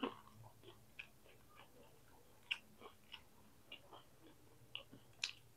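A person chewing a mouthful of fried tempeh close to the microphone: faint, irregular soft clicks of the mouth and jaw, one every half second to a second or so.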